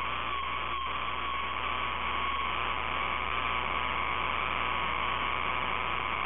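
Steady racetrack drone heard through a low-quality microphone: an unchanging hum and hiss with a slightly wavering tone, with no separate passes or impacts standing out.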